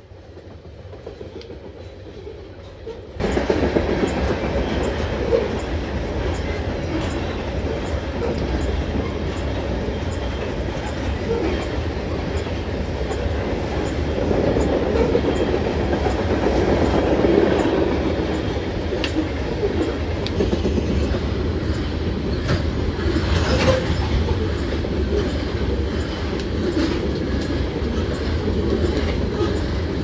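Freight train of coal hopper cars rolling past close by: a steady rumble of steel wheels on rail, with a running clickety-clack over rail joints. The sound jumps suddenly louder about three seconds in.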